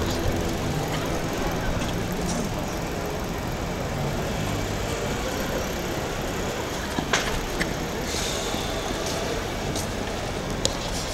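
Steady outdoor city background noise, like road traffic with distant voices, with a few faint short clicks in the second half.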